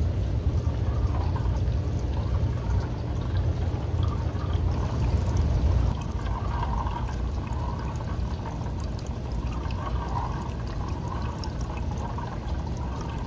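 A small stream of water pouring from a feed pipe onto a 3D-printed waterwheel, giving a steady splashing trickle over a constant low rumble.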